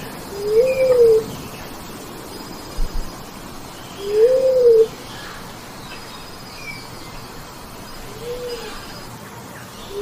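Bleeding-heart dove calling: three single low coos about four seconds apart, each rising then falling in pitch, the third one softer. Faint chirping and a thin high tone sound on and off behind them.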